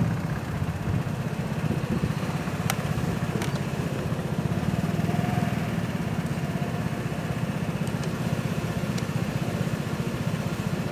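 A Vespa 300 scooter's single-cylinder four-stroke engine idling steadily with a low, even pulse.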